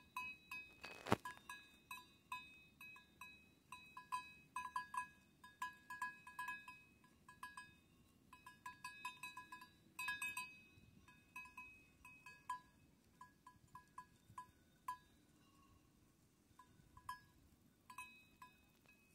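A small bell on a grazing sheep, clinking irregularly as the animal crops grass and moves its head. The clinks come in clusters of several a second with short pauses between, all at the same bright pitch.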